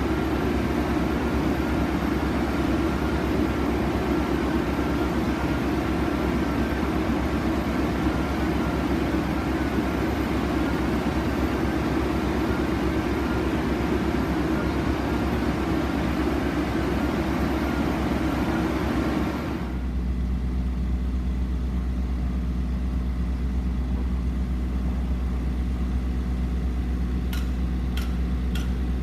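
Heavy drilling rig machinery running steadily, its engine and hydraulics making a dense continuous noise. About two-thirds of the way through, the sound changes abruptly to a lower, steadier hum, and a few sharp clicks or knocks come near the end.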